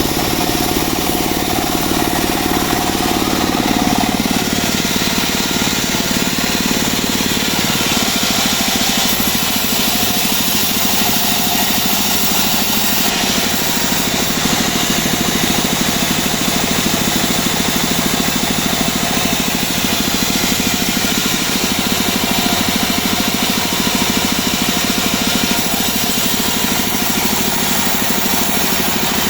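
Homemade portable bandsaw sawmill running steadily under power from its small engine.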